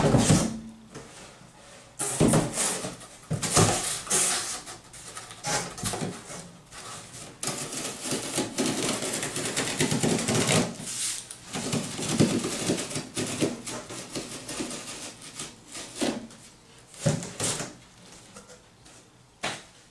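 Box cutter slicing through corrugated cardboard along a box's fold lines, a long scratchy rasping broken by short pauses. Later come separate knocks and scrapes as the box and cut flaps are handled.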